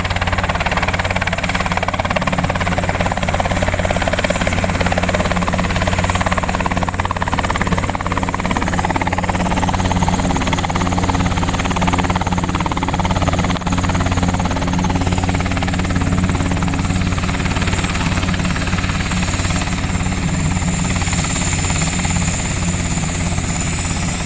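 Helicopter running close by at a steady level: a rapid low beat from the rotor blades, with a high steady turbine whine above it.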